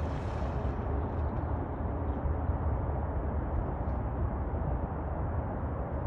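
Wind buffeting the microphone with a steady low rumble. The splashing of an animal swimming at the water's surface fades out within the first second.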